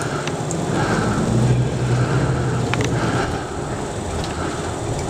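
Vehicle engine and road noise heard from inside the cabin: a steady rush with a low engine hum that grows stronger about a second in.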